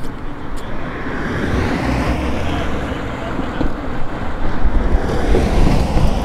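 Street traffic passing with wind buffeting the microphone: a steady road noise that swells about a second in and stays up, over a low gusty rumble.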